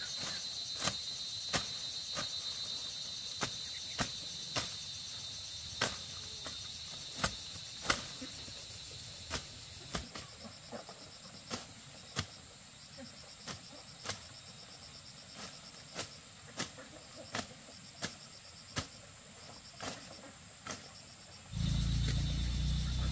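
Insects trilling steadily, with sharp clicks or taps about every second. Near the end a loud low droning sound starts.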